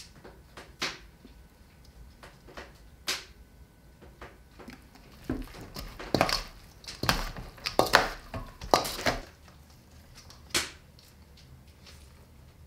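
A metal spoon mixing a shredded vegetable salad in a stainless steel bowl: scattered scrapes and clinks against the bowl and the wet crunch of the shreds. The strokes come thickest around the middle.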